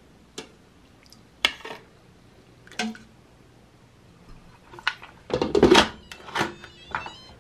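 A metal spoon clinking a few times against the stainless-steel inner pot of an electric pressure cooker, then the cooker's lid set on and turned closed: a louder cluster of clatters and thunks about five and a half seconds in, followed by a couple of lighter clicks.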